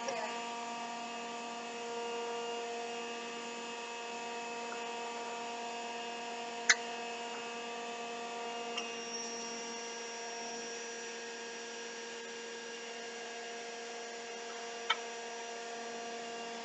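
Electric juicer's motor running unloaded with a steady hum, with two sharp clicks about seven and fifteen seconds in.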